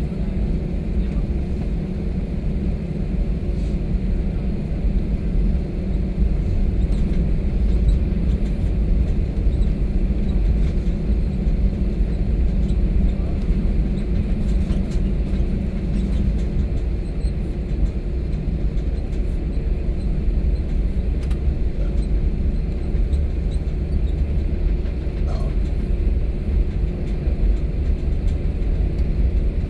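Steady low rumble of an airliner cabin while the plane taxis after landing, with the engines at idle.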